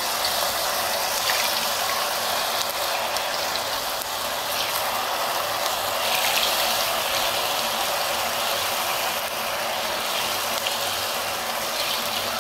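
Hot oil sizzling and crackling steadily as batter-coated cauliflower florets deep-fry in it.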